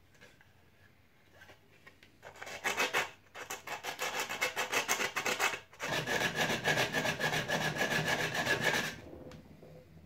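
Hand sanding of a 3D-printed plastic helmet visor: quick back-and-forth scraping strokes. They start about two seconds in and stop briefly about halfway through before starting again.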